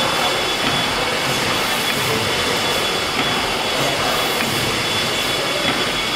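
Large horizontal steam mill engine running steadily in its engine hall: an even mechanical running noise with a thin steady high whine and a few faint clicks.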